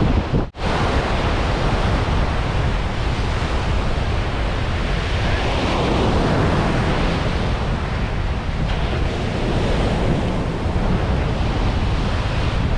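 Surf breaking steadily on a sandy beach, with wind buffeting the microphone. The sound cuts out for an instant about half a second in.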